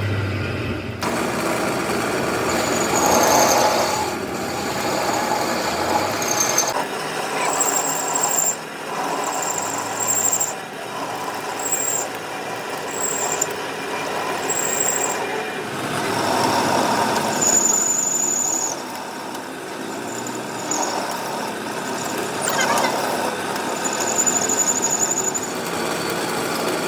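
Steel being worked with a tool that scrapes and gives off short, high squeals, repeating every second or two.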